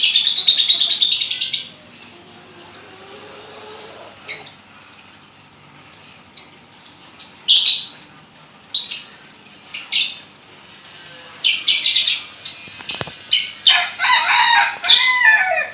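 Lovebird chattering and chirping: a run of rapid high chatter at the start, then short sharp calls every second or so, and a second fast chattering burst near the end.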